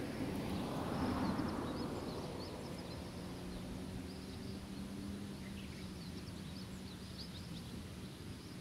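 Outdoor rural ambience with small birds chirping high and repeatedly. A broad rushing noise swells and fades over the first two seconds, and a faint steady low hum follows.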